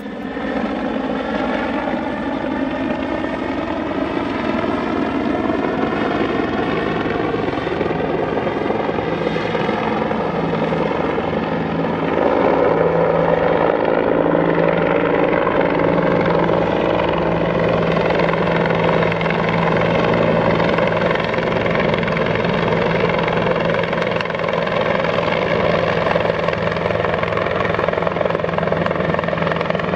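Bell 412 twin-engine helicopter with a four-blade main rotor flying overhead: continuous turbine and rotor noise, growing louder about twelve seconds in.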